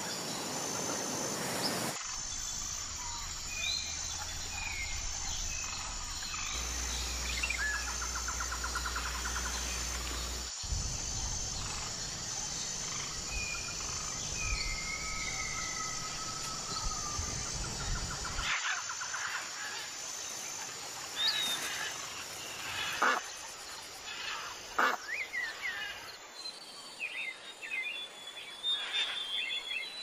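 Wild birds chirping and calling outdoors: short whistled notes and brief glides, with sharper, louder calls in the last third. A steady high-pitched tone runs underneath, and the background noise changes abruptly several times as separate clips cut in.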